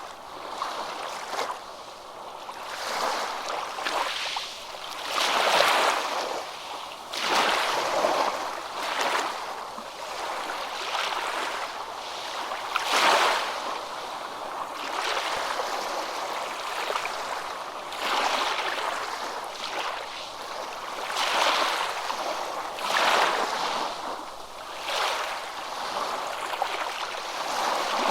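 Water lapping and splashing in uneven surges, swelling and fading every second or two.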